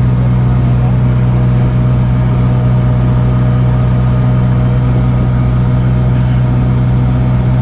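Amphicar's rear-mounted engine running at a steady speed while the amphibious car cruises on the water, a loud, even drone with a constant low hum that does not change pitch.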